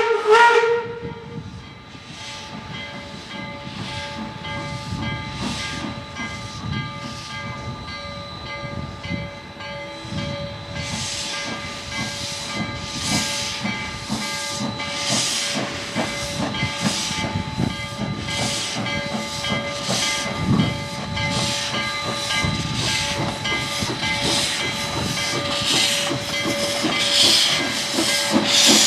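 Narrow-gauge steam locomotive: its whistle cuts off about half a second in, then its exhaust chuffs at about one beat a second over a steady hiss. From about ten seconds in the chuffs grow louder and quicker as it works harder.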